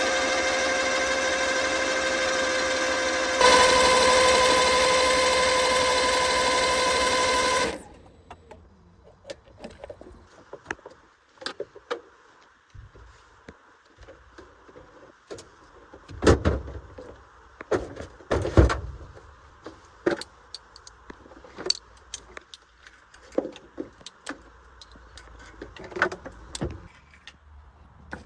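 A loud, steady mechanical tone that gets louder about three seconds in and cuts off suddenly near eight seconds. Then scattered clicks, knocks and metallic clinks of parts or tools being handled.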